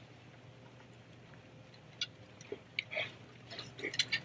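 Faint scattered clicks and taps of small screws and a screwdriver on a metal mounting bracket as the screws are driven in, sparse at first and coming more often in the second half, over a low steady hum.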